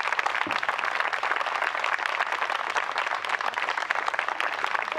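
Audience applauding: many people clapping at once in a dense, steady stream of claps.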